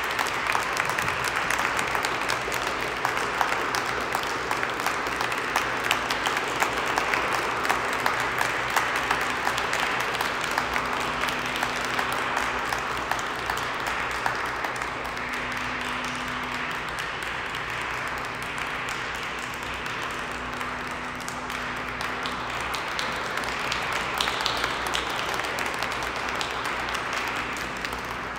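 Audience applauding steadily for a long stretch, slowly growing quieter.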